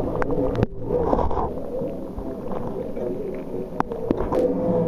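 Indistinct chatter of people talking in a large hall, with a few sharp knocks, one about half a second in and two near the end.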